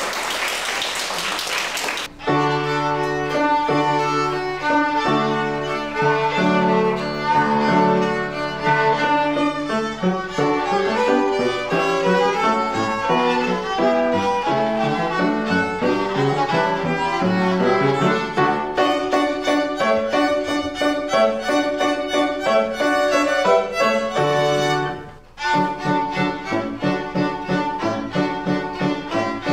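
Applause, then about two seconds in a young students' violin ensemble starts playing a piece. The playing stops briefly near the end, then resumes.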